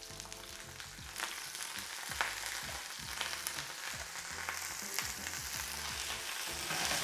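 Artichoke hearts frying in olive oil in a small pan, sizzling and spitting as the water in them hits the hot oil, growing gradually louder.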